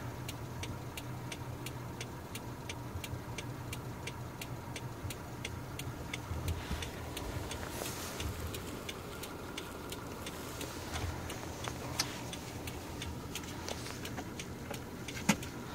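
Even, rapid clicking ticks, a little over two a second, inside the cabin of a 2013 Subaru Forester, over the low steady hum of its engine idling.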